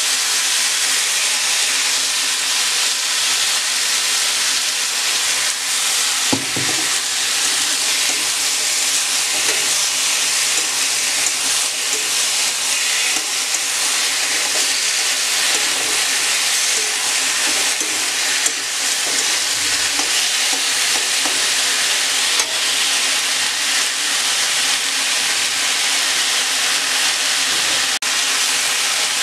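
Sliced green banana and potato pieces sizzling steadily as they fry in a wok, with a spatula stirring and scraping through them; a short knock about six seconds in.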